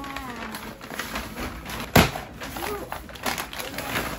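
Rustling and handling noises with a single sharp knock or snap about halfway through, the loudest sound here, and faint voices around it.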